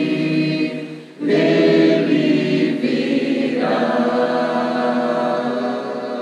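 A small mixed group of voices singing a hymn in harmony, holding long closing chords: a brief break about a second in, then a new sustained chord that shifts a little after the midpoint and begins to fade near the end.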